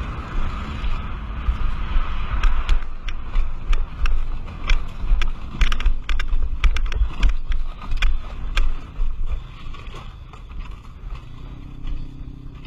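Wind buffeting a helmet-mounted camera's microphone in a low rumble, with a run of sharp clicks and rattles through the middle. A faint engine hum comes in near the end.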